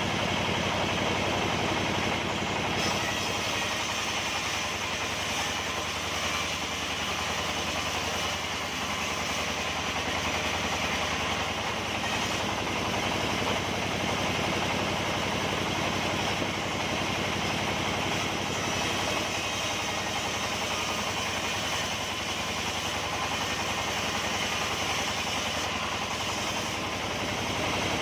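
Sawmill machinery running with a steady, unbroken engine-like drone.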